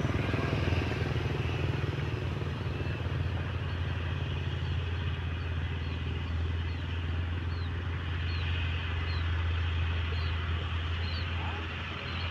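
Diesel engine of heavy earthmoving machinery running steadily under work, a constant low drone.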